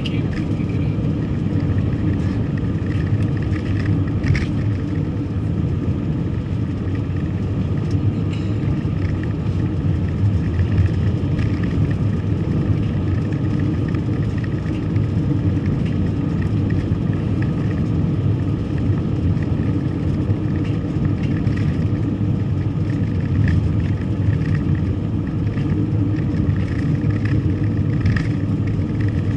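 A car driving, its engine and tyres making a steady low rumble, with a few faint clicks.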